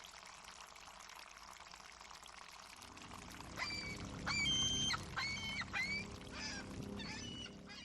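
Water washing at a harbor, then a seagull calling about eight times in quick succession, starting about three and a half seconds in; each call is a short arching yelp, and these are the loudest sound. A low steady drone comes in under the calls about three seconds in.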